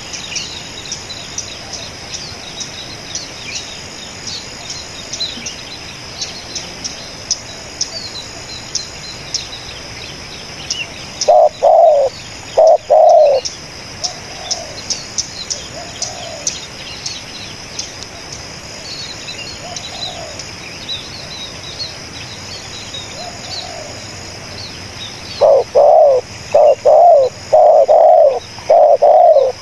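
Spotted dove (tekukur) cooing loudly and close: two coos about eleven seconds in, then a steady run of repeated coos near the end. Under it, continuous quick high-pitched chirping from small birds.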